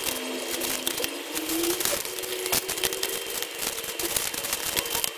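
Small plastic bags of beads crinkling as they are handled and packed into a plastic organizer drawer, with many small clicks and taps.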